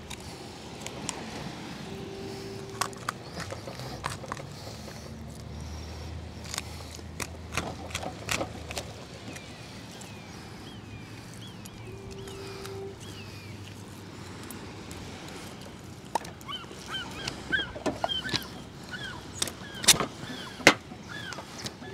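Knife and hands clicking and knocking on a cutting board as a lingcod is filleted. A short low steady tone sounds twice, and from about 16 s birds give a run of short chirping calls, with the loudest knocks just before the end.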